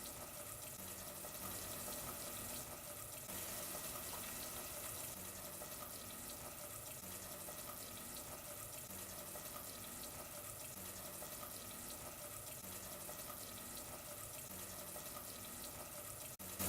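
Faint, steady watery hiss of wine simmering in a saucepan on the stove as it reduces.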